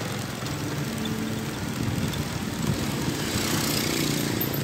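Small motorcycle engine running steadily while riding down a street. From about two seconds in, another motorbike's engine grows louder as it passes close alongside.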